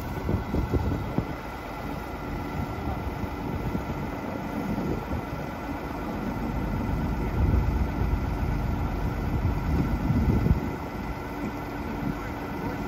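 LiuGong 835 wheel loader's diesel engine idling steadily.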